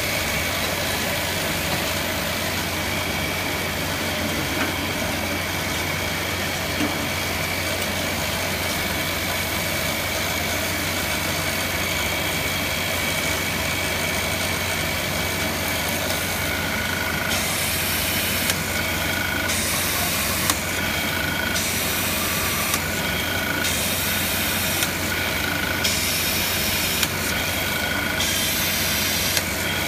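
Drill press motor running steadily with a sintered diamond drill bit cutting glass under water coolant. From about halfway, short grinding hisses come roughly once every second or so, each one the bit cutting through the glass.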